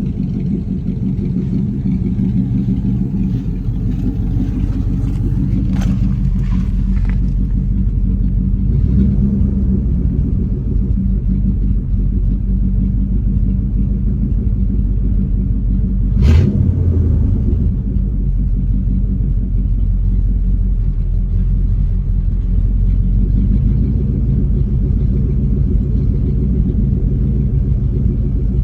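Old car's engine idling low and steady, running smooth on newly hooked-up fuel lines and fuel filter. A single sharp knock sounds about sixteen seconds in.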